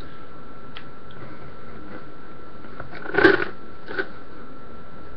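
Cardboard shipping box being handled and pulled open: a short rustling crunch about three seconds in and a smaller one about a second later, over a steady hiss.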